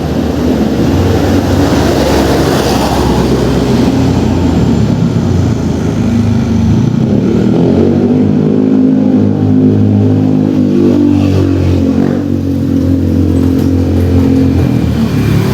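A loud, steady motor hum with several pitches held together that drift slightly up and down, growing stronger about halfway through.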